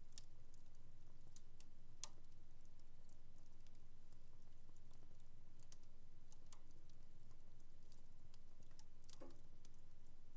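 Wood fire in a home fireplace crackling: scattered faint snaps and pops, the sharpest about two seconds in and a fuller pop near the end, over a low steady hum.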